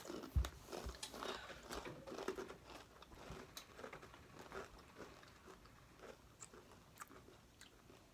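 Crunchy chips being bitten and chewed close to the microphone: a run of sharp crunches that is dense at first and thins out over the last few seconds.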